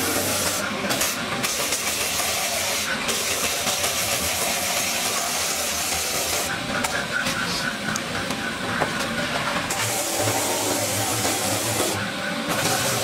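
Handheld rotary tyre buffer grinding against the rubber of a truck tyre's inner wall, a steady, harsh, hissing rasp with a few brief dips where the tool eases off. The rubber around the damage is being roughened to prepare it for a repair patch.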